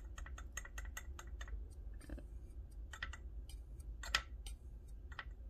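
Quick, irregular light clicks and taps of a clear plastic container being handled and tapped while pastel dust is worked out of it, with one sharper tap about four seconds in.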